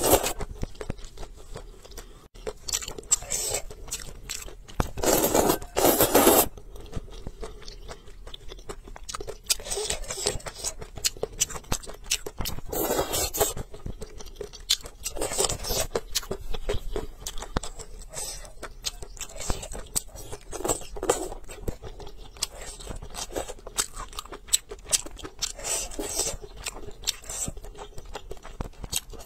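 Close-miked eating of spicy noodle soup with tofu: steady wet chewing with many small clicks, broken by several slurps of noodles and broth that each last about a second, the loudest about five seconds in.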